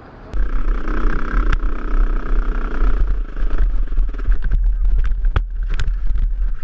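Dirt bike engine running under heavy wind rumble on a helmet camera's microphone, starting about a third of a second in. In the second half come a run of sharp knocks and clatters as the bike goes down a steep rocky slope.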